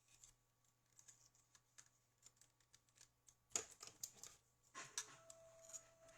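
Faint, scattered light clicks and taps of small objects being handled, with a louder click about three and a half seconds in, then denser clattering joined by a faint steady hum near the end.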